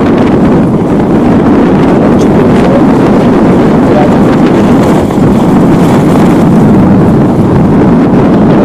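Strong wind buffeting the microphone: a loud, steady rumble that covers everything else.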